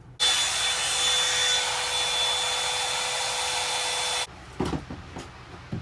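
Hair dryer blowing with a steady whine over its airflow noise, cutting off suddenly after about four seconds. A few low knocks follow.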